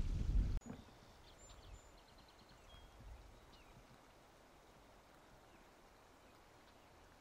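A low rumble on the microphone cuts off abruptly about half a second in. Faint bird calls follow over quiet marsh ambience: scattered high chirps, a quick trill and a few short falling notes.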